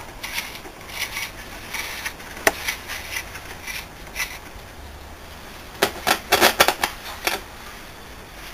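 Sharp clicks and light metallic knocks from hands working the controls and sheet-metal chassis of an old valve radio, with a quick cluster of clicks about six to seven seconds in, over a faint low hum.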